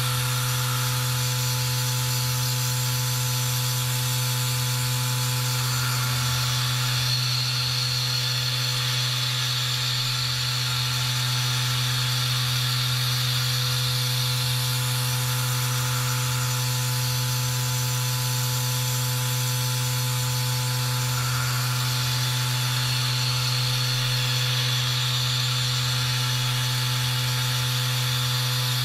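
CNC milling machine's spindle turning an 8 mm end mill at 7,500 rpm through P20 mould steel in light 0.3 mm finishing passes: a steady hum with a hissing cutting noise over it that swells and eases slightly every few seconds.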